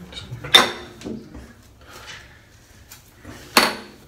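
Two short, sharp knocks, one about half a second in and one near the end, each dying away quickly, with faint handling noise between them.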